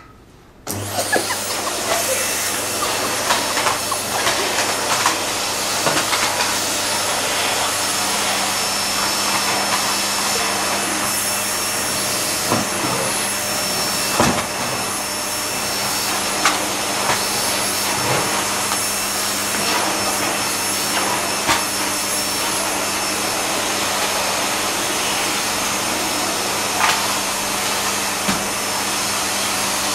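Vacuum cleaner switched on about a second in, then running steadily with a hum, and a few knocks and rattles as the nozzle is pushed around.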